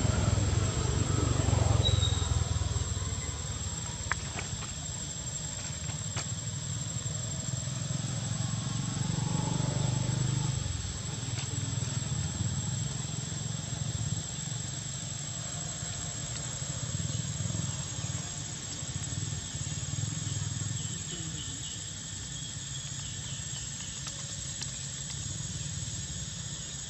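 Outdoor forest ambience: a steady high-pitched insect drone over a low rumble, with a few faint short ticks and a brief high squeak about two seconds in.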